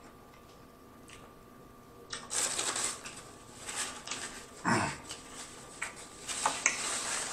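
Close-miked chewing: wet, smacking mouth sounds of a man eating a mouthful of fast food. They come in irregular bursts that start about two seconds in, after a short quiet stretch.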